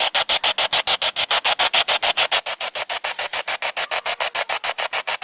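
Spirit box (ghost box) sweeping through radio stations: hissing radio static chopped into quick even pulses, about eight a second.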